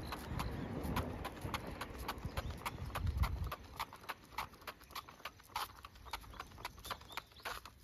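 Quick, steady patter of a Cavalier King Charles spaniel's paws in dog boots tapping on asphalt as it walks, about five taps a second. A low rumble underneath stops about halfway through.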